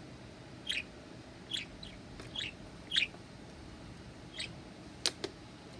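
Budgerigar giving short, scattered chirps, about six in all, with two sharp clicks close together about five seconds in.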